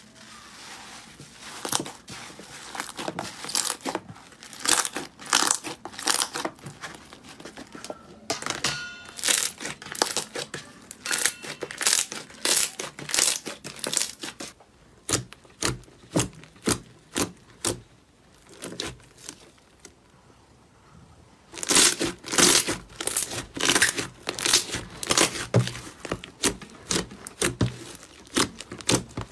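Hands pressing, squeezing and pulling slime, giving irregular runs of sticky pops, crackles and squelches. The pops thin out for several seconds past the middle, then come thick again.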